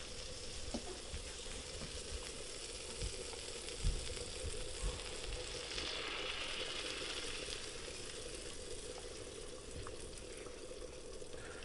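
Melted butter sizzling steadily in a hot cast iron skillet as cornbread batter is poured into it, with a few soft low knocks a few seconds in.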